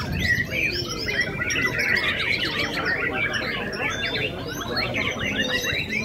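Many caged white-rumped shamas (murai batu) singing at once in contest song: a dense, unbroken tangle of overlapping whistles, trills and chirps.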